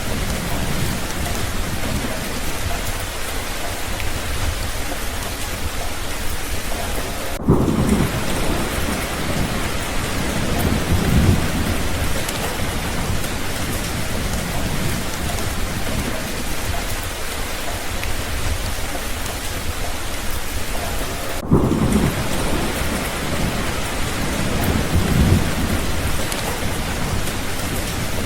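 Steady rain falling, with thunder: a clap about seven seconds in and another about twenty-one seconds in, each rumbling on low for a few seconds.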